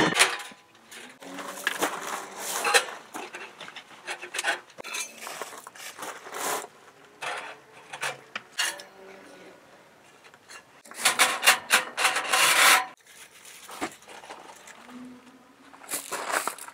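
Metal clanking, scraping and rubbing as a G-Stove camping wood stove and its stovepipe sections are handled and fitted together, with a denser, louder stretch of rattling clatter about 11 seconds in.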